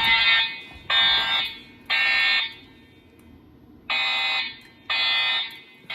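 EST Genesis speaker/strobes on an EST3 voice evacuation system sounding the "masked integrity" alarm tone in the temporal-three evacuation pattern. Three short tones about a second apart, a pause, then the next group begins with two more.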